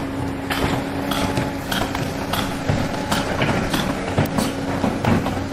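Construction-site machinery: a steady mechanical hum with frequent irregular clanks and knocks on top.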